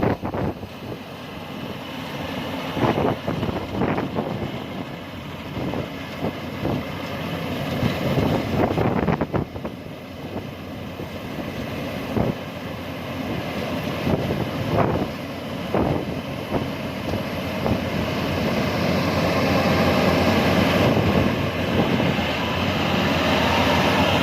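Farm machinery engine running, with scattered knocks and clatter, growing louder over the last few seconds.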